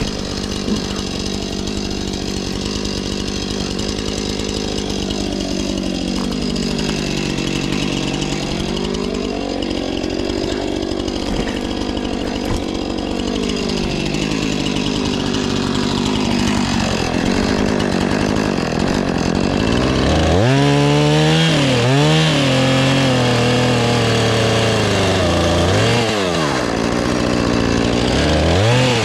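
Husqvarna 450 Rancher two-stroke chainsaw running hard while cutting wood, its engine pitch sinking and recovering in slow swells. From about twenty seconds in the throttle is blipped, the engine revving up and dropping back sharply several times.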